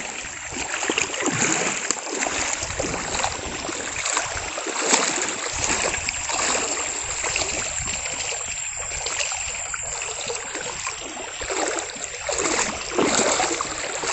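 Shallow river water splashing and running as someone wades across the riverbed: a steady rush with irregular splashes.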